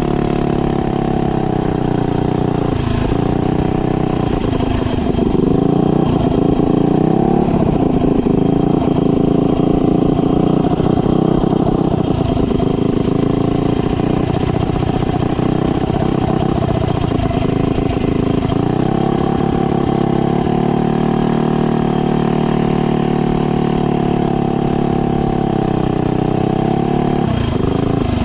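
Mega Moto minibike's 212cc single-cylinder engine running under load on a ride while still being broken in. Its pitch drops and climbs again several times as the throttle is eased off and opened back up.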